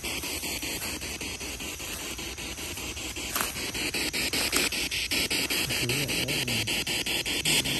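Spirit box radio scanner sweeping through stations: a steady hiss of static chopped by rapid, evenly spaced clicks, about five a second.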